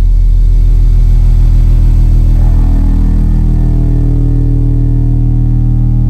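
Subwoofer playing a loud, steady 40 Hz test tone, driven hard by a Cicada FLX 2500.1 monoblock amplifier during a power test into a real speaker load. About two and a half seconds in, a buzzier edge of added overtones comes into the tone.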